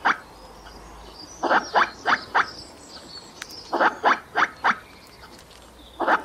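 Squirrel alarm calls: short barks in quick runs of four, about three a second, with pauses of a second or more between runs.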